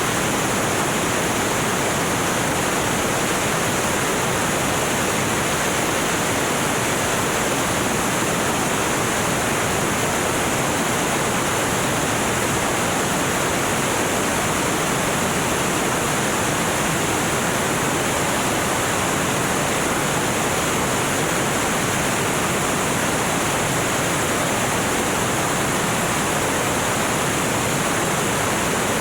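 Steady rushing noise of a small aircraft in flight, engine and airflow blended into an even roar without change.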